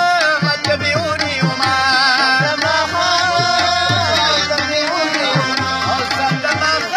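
Instrumental Pashto folk music: a tabla beats a steady rhythm under a wavering melody played on a keyboard and rabab.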